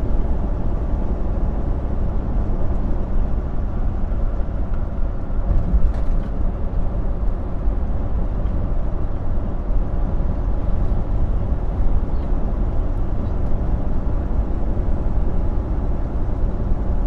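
Steady drone of a Volvo semi-truck's engine and tyres heard from inside the cab while cruising on the highway, with no gear changes or braking.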